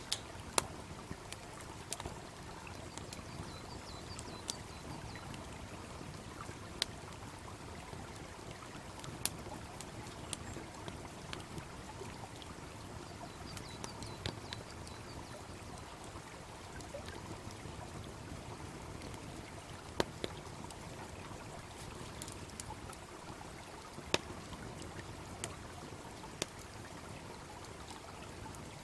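Wood fire crackling, with sharp pops at irregular intervals, over the steady rush of a babbling brook.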